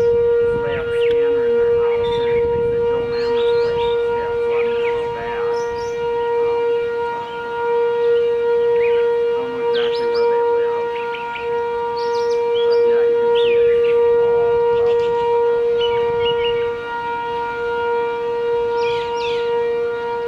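Outdoor civil-defence tornado warning siren sounding a steady, unbroken tone, its loudness swelling and fading a little as it sounds. Short high chirps come over it.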